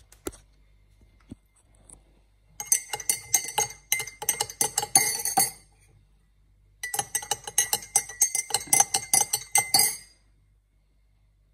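A spoon stirring honey into hot kahwa in a glass mug, clinking rapidly against the glass in two spells of about three seconds each, with a faint ringing of the glass.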